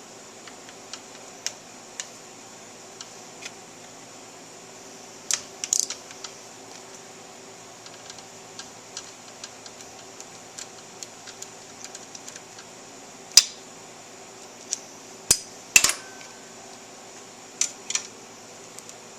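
Hand tools clicking and clinking on metal, scattered light ticks with a few louder clanks: a socket wrench on a long extension working the bolts of a motorcycle's intake reed-cage assembly, over a steady hiss.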